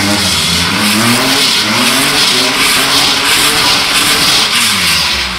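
Mini hatchback drifting in tight circles: the engine revs up and down again and again over a loud, continuous hiss of tyres skidding on asphalt.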